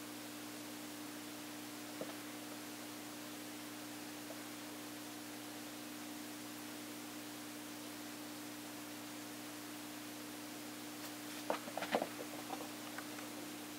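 Steady low hum and hiss of a quiet room, with one faint tap about two seconds in and a short cluster of light knocks and taps near the end.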